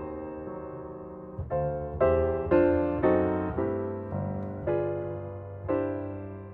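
Background music: slow, soft piano chords, each struck and left to fade, about one every half second to a second.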